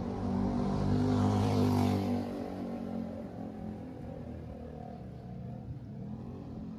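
A motor vehicle passing on the street, loudest about one to two seconds in, then fading to a low steady hum.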